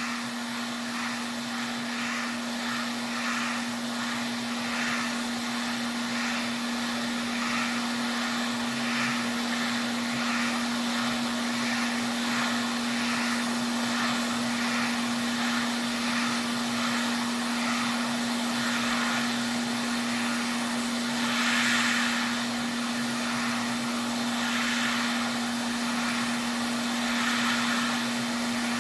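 Hot-air soldering equipment blowing steadily while heating a PS5 motherboard to solder on an HDMI port: a constant whir over a steady hum, with the airy hiss swelling faintly about once a second.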